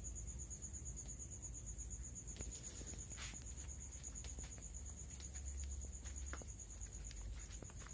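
An insect trilling steadily: one high, rapidly pulsing tone without a break, with scattered faint clicks beneath it.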